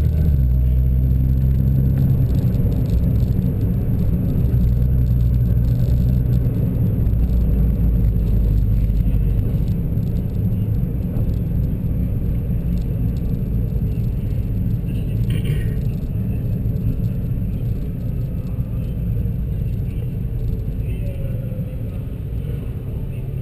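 Nissan GT-R's twin-turbo V6 heard from inside the cabin, running at idle and low speed with a steady low rumble. The rumble is heavier for the first nine seconds or so, then eases.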